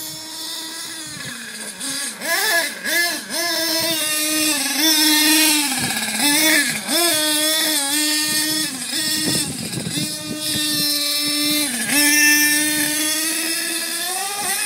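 HPI Savage radio-controlled monster truck's motor buzzing at a high pitch as it drives across grass. The pitch rises and falls with the throttle, with several quick revs around two to three seconds in and again around six to seven seconds in, before it holds steady and climbs near the end.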